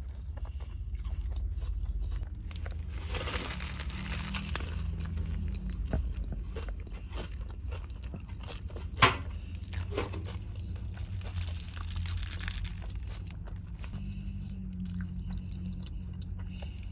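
Close-up chewing and biting of a shrimp gyro, with wet mouth clicks and two stretches of wrapper crinkling.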